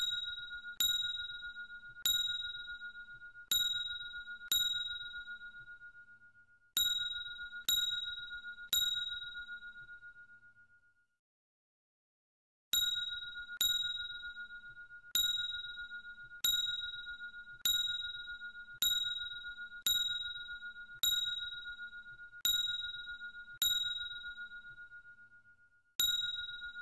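Bell-like ding sound effect, struck once per counted chew as a cat chews a dental treat. It sounds about nineteen times at uneven intervals, each ding fading out, with a pause of a couple of seconds just before the middle.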